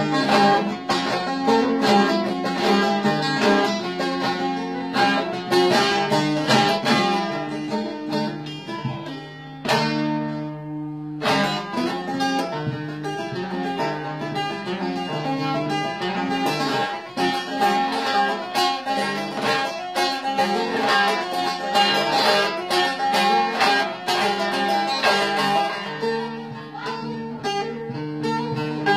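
Bağlama (Turkish long-necked saz) played solo in the şelpe style, the strings struck and plucked with the fingers rather than a plectrum: a running melody over a steady low drone. About ten seconds in the melody breaks off briefly while a chord rings on, then the playing resumes.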